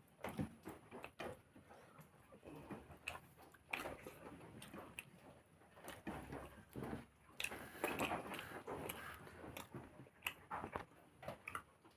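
A person chewing and eating with irregular wet mouth smacks and small clicks, louder in short clusters about four seconds in and again near eight seconds.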